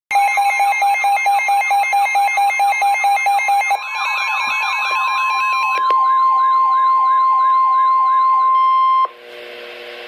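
Weather alert radio sounding its alarm for a Special Marine Warning: rapid pulsing beeps over a repeating warbling siren. About four seconds in the beeps give way to a steady high tone. The alarm cuts off sharply about a second before the end, leaving radio hiss.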